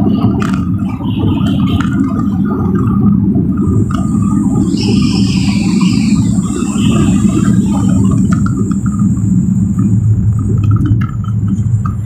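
Steady low engine drone and road rumble heard from inside a moving vehicle's cab.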